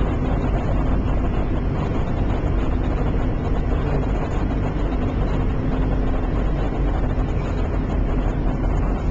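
Steady rumble of a car's engine and tyres on the road, heard from inside the cabin while driving.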